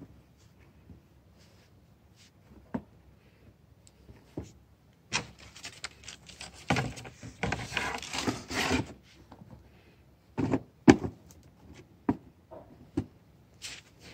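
Tissue paper rustling and crinkling in a cardboard shoebox for several seconds in the middle, between scattered knocks and taps of shoes and box being handled.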